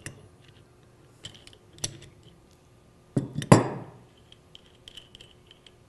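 Steel wrenches clicking and clinking on the top nut and shaft of a mixing valve's drive mechanism as the nut is loosened. A sharper click comes near two seconds in, and a louder metal clank with a short ring comes about three and a half seconds in.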